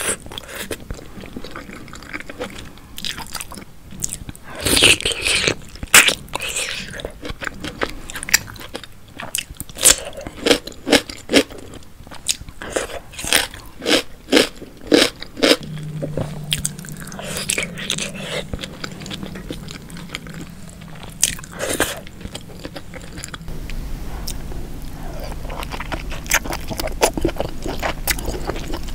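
Close-miked eating sounds: crisp, crunchy bites into corn on the cob coated in sauce, with chewing and wet mouth sounds between them. The crunches come thick and loud in the first half and thin out later; after about 23 seconds only softer chewing remains.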